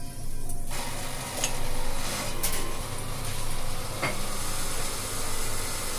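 Espresso machine steam wand hissing, starting sharply about a second in, with a wavering level.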